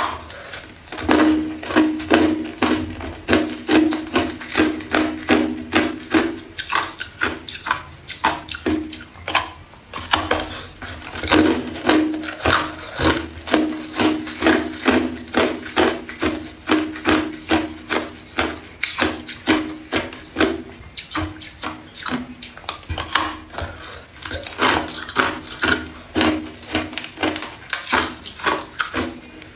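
Hard clear ice bitten and chewed close to the microphone: a dense run of sharp, cracking crunches, about two to three a second, easing briefly around ten seconds in. A low steady hum runs underneath.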